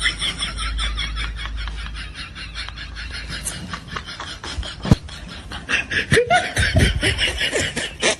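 Rapid, high-pitched snickering laughter, a quick run of short pulses that grows louder after about six seconds.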